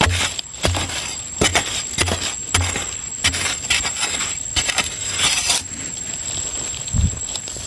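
A narrow metal digging blade chopping into dry, crumbly earth, a stroke about every two-thirds of a second, each with a dull thud. Then the blade scrapes and loosens soil in the hole, and one more thud comes near the end.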